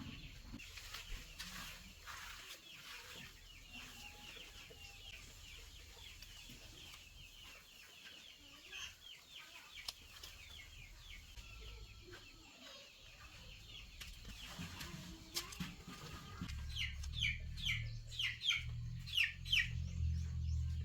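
A flock of chickens clucking with many short, quick calls, growing louder over the last few seconds with a low rumbling noise underneath.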